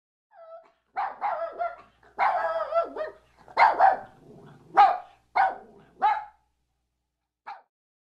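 A dog barking: a quick run of high-pitched barks and yips, one of them drawn out, followed by a single short bark near the end.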